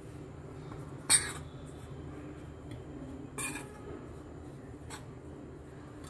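A metal spoon stirring mashed potato and flour in a stainless steel wok, scraping and knocking against the pan three times, the loudest about a second in.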